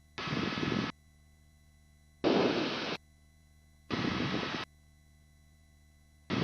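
Helicopter engine and rotor noise heard through the intercom, switching abruptly on and off as the voice-activated headset mic opens in four short bursts of rushing noise, with only a faint steady hum between them.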